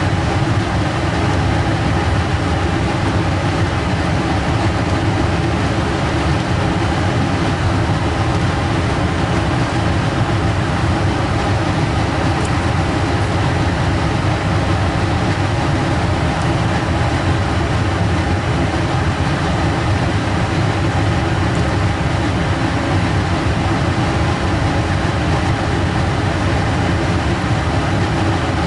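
Biosafety cabinet's blower fan running: a steady rushing noise with a low hum that does not change.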